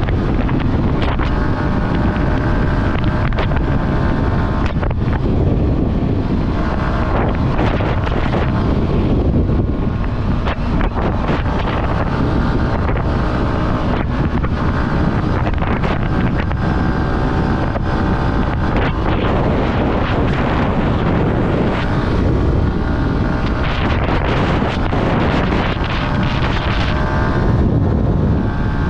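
Yamaha R15 single-cylinder motorcycle engine running at road speed, its note rising and falling with the throttle, under heavy wind noise on the microphone.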